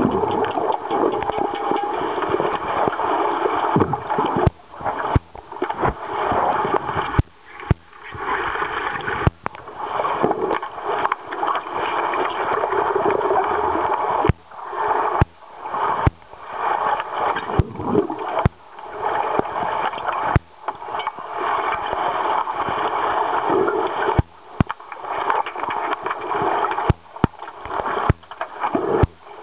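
Pool water gurgling and splashing as underwater hockey (octopush) players churn it, a dense steady wash of water noise. It cuts out briefly many times, every second or two, with a few sharp clicks among it.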